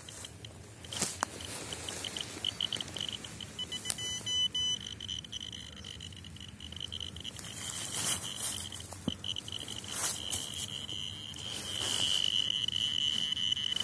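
Radiascan 701A dosimeter's high beeper sounding count after count. The beeps quicken until they run together into a steady tone, break up again, and become steady and loudest near the end. The title puts the reading down to a dead, faulty Geiger counter.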